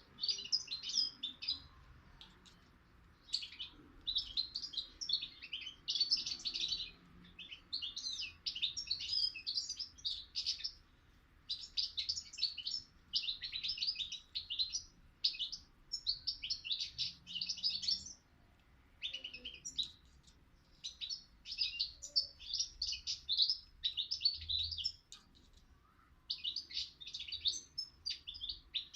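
A young songbird singing continuously in rapid, twittering phrases of one to two seconds each, separated by short pauses.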